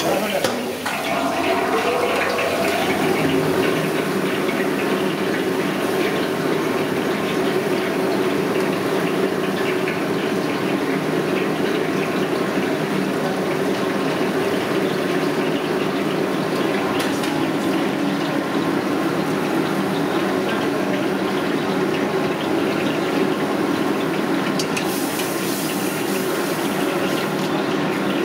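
Liquid boiling and sizzling in a hot wok over a high gas flame: a steady rushing hiss.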